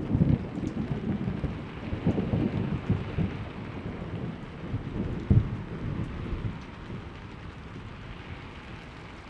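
Thunder rumbling over steady rain, with a sharper peak about five seconds in, dying away until only the hiss of the rain remains.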